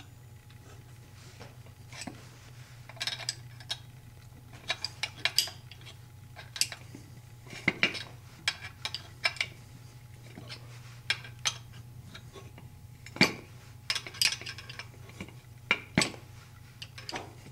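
Two steel wrenches clicking and clinking irregularly against each other and against a bolt and long rod coupling nut, used as a homemade splitter to force an ATV spindle's ball joints apart. There are a few sharper metallic knocks.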